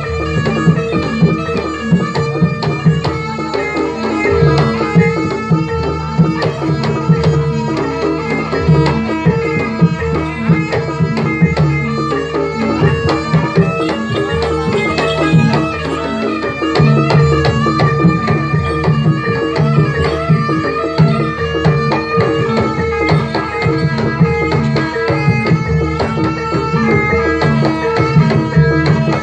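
Javanese jaranan gamelan music: fast hand drumming on kendang over ringing bronze instruments, with a steady held tone running under the beat.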